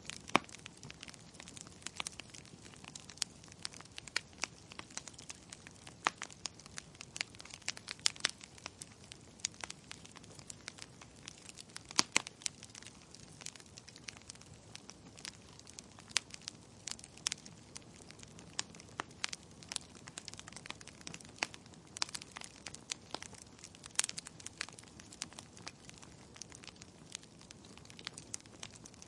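Wood fire burning in a fireplace, its logs crackling with many irregular sharp pops and snaps over a soft steady hiss.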